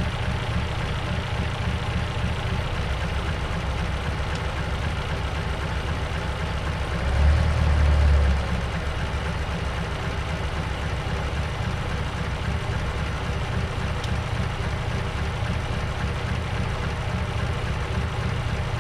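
1951 Mercury 255 cu in flathead V8 idling steadily, briefly swelling louder for about a second some seven seconds in, as the carburetor is adjusted. It is running on freshly restored fuel delivery after a year of sitting, with an idle the owner calls all wonky and in need of tuning.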